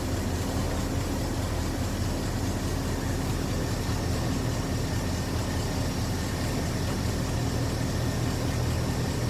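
Dodge Charger's 318 small-block V8 running steadily with an even low drone.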